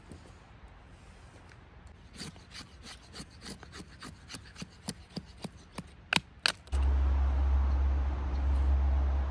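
Knife shaving thin curls off a stick to make a feather stick: quick scraping strokes about three a second, the last few sharper. About two-thirds of the way in, a loud low rumble suddenly starts and covers the rest.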